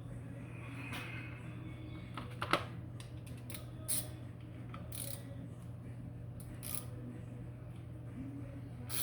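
Hand tools clicking against metal engine parts as a tight bolt on a motorcycle cylinder head is worked loose, with a faint creak near the start and a sharp metallic click about two and a half seconds in. A steady low hum runs underneath.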